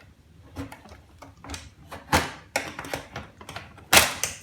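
Scattered clicks and knocks of the typewriter's hard plastic and metal parts being pried and pulled apart by hand. The two loudest knocks come about two seconds in and near the end.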